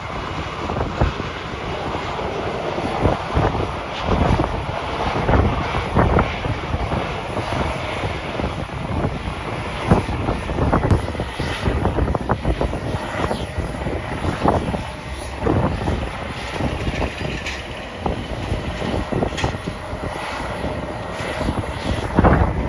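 Airliner jet engines running, a faint steady whine under a loud rush, while strong gusty wind buffets the microphone again and again.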